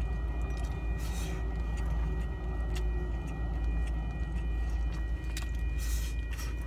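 Steady low hum of a car idling, heard inside the cabin, with scattered light clicks and rustles of a plastic fork working through food in a styrofoam takeout box.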